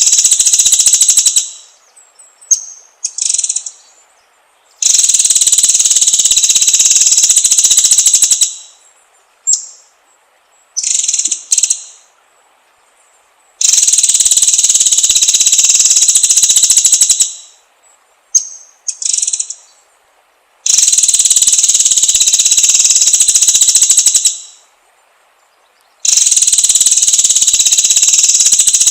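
Insect buzzing in long, even bursts of about four seconds, coming back roughly every seven seconds, with short bird chirps in the pauses between bursts.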